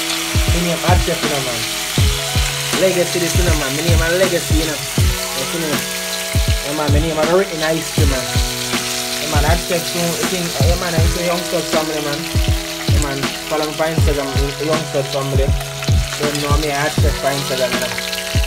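Fish frying in hot oil in a pot, with a steady sizzle, under background music with a melody and a deep repeating beat.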